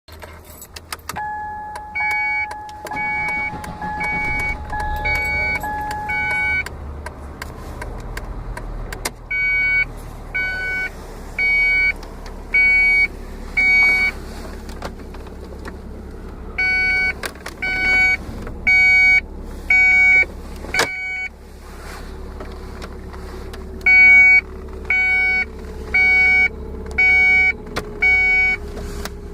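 Repeated electronic beeping from a 1994 Ford Contour, a noise of unknown origin that recurs about every 30 minutes. It opens with a two-tone beep pattern, then comes in groups of five or six beeps about a second apart with pauses between groups, over a steady low rumble.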